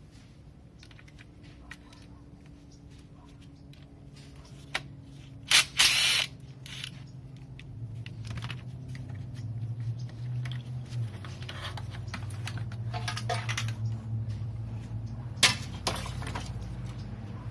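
Hand tools working a 10mm nut on the back of a VW 1.8T engine's intake manifold: scattered metal clicks and clanks, with louder clanks about five and a half and six seconds in and again near the end. A low motor hum builds in the background from about eight seconds in.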